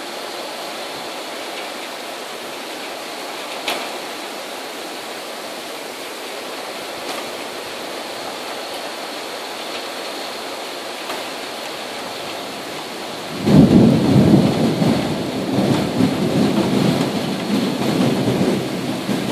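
Heavy rain hissing steadily. About two-thirds of the way in, a loud clap of thunder breaks in and rumbles on, rising and falling.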